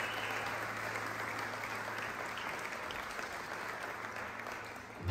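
Audience applauding, the clapping slowly thinning out near the end.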